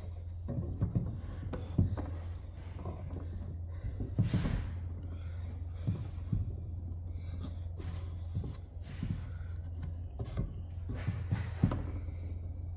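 Wooden workpieces being handled at a workbench: scattered light knocks and taps, about a dozen irregular ones, over a steady low hum.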